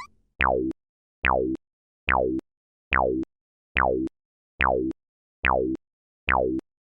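Synthesized cartoon sound effect: eight identical short tones, each about a third of a second long, dropping quickly in pitch. They repeat evenly, a little faster than one a second, with silence between them.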